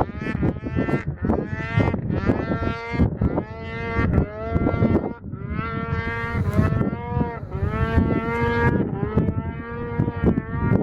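Modified Polaris IQ-R 800 two-stroke snowmobile engine breathing through an HPS aftermarket silencer, revved in quick blips that give way to longer rev-ups from about halfway through, the pitch rising and dropping back with each.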